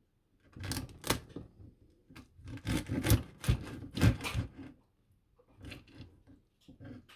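Kitchen knife cutting through crispy roasted pork belly skin on a wooden cutting board: crackling crunches in two spells, about a second in and again from two and a half to four and a half seconds, with a few sharper knocks of the blade, then fainter crackles near the end.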